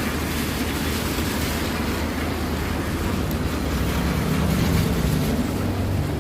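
Steady hiss of rain with a low vehicle rumble underneath that swells about four seconds in.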